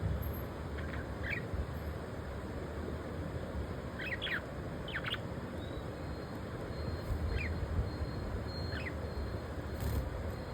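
Budgerigars giving short, high chirps every second or two, some in quick pairs, over a steady low background noise.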